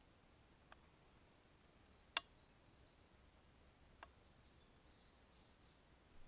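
Near silence: quiet outdoor ambience with faint high chirps and a few sharp clicks, the loudest a little after two seconds in.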